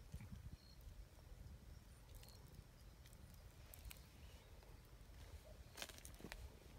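Near silence with a low outdoor rumble. About six seconds in comes a short cluster of faint clicks and crunches: footsteps on a paved path strewn with dry leaves and grit.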